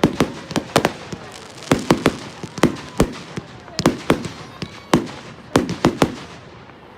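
Fireworks bursting in quick, irregular succession: a rapid string of sharp bangs, several a second, each with a short echo.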